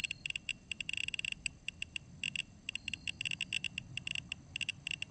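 Better Geiger S-1 scintillation radiation detector sounding its count alarm, a rapid, irregular stream of short high-pitched chirps, one per detected count. The fast rate comes from the naturally occurring radioactive check source lying on it, with the reading in the high range.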